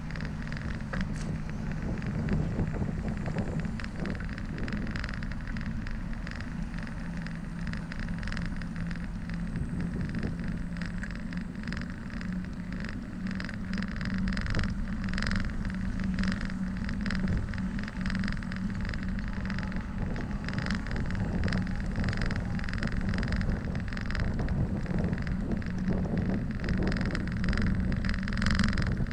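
Bicycle rolling along a paved path: steady wind and tyre noise with frequent small rattles and knocks, and road traffic passing alongside.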